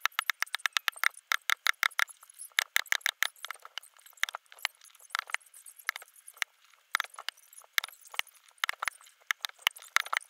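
Punches and strikes landing on handheld karate strike pads, played back sped up: a fast run of sharp, high-pitched slaps, several a second, in uneven bursts.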